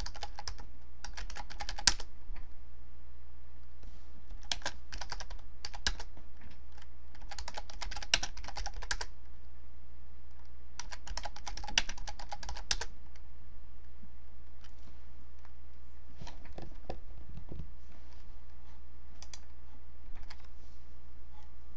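Typing on a computer keyboard: bursts of rapid keystrokes with pauses between them, thinning to scattered single clicks in the second half, over a steady low hum.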